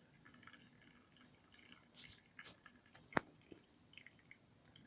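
Faint dripping and crackling of hot water draining through ground coffee in a pour-over dripper's filter, with one sharp click about three seconds in.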